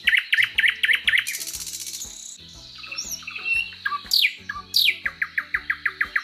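Songbird calling: fast runs of short rising chirps, a buzzy trill, and two steep falling whistles near the middle, then another quick chirp series. Steady background music plays underneath.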